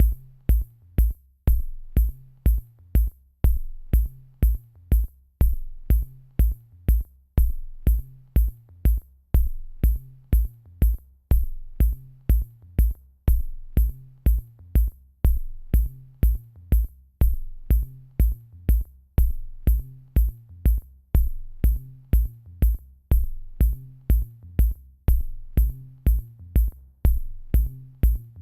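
Electronic music with a steady drum-machine beat, about two beats a second, over a repeating bass line and a high ticking hi-hat.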